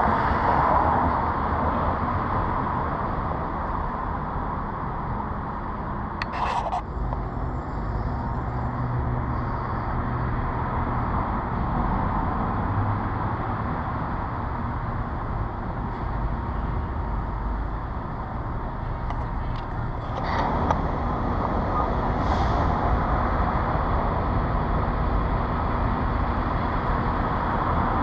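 City street traffic: a steady wash of passing cars, with a vehicle's low engine hum for several seconds early on and two sharp knocks, one about six seconds in and one about twenty seconds in.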